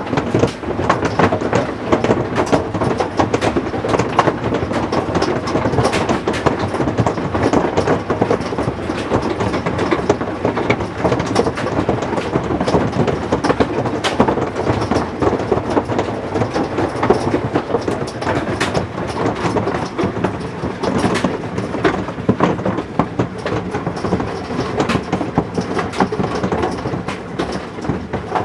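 Heavy hail pounding down in a dense, continuous hammering of many sharp ticks and knocks, which the man calls some of the most intense hail he has been in for a while.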